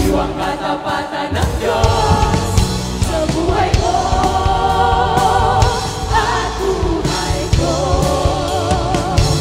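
A large group of voices singing a Tagalog worship song together over instrumental backing, with long held notes.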